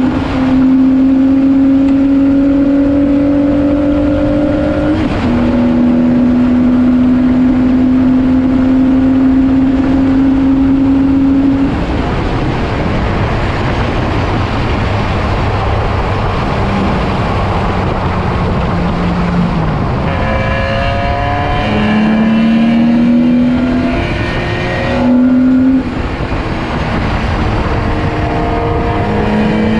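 BMW E46 race car engine at full throttle, rising in pitch through an upshift about five seconds in. About twelve seconds in it lifts off and the pitch falls for a corner, then it picks up again with several short rising pulls. Heavy wind and road noise run under it throughout.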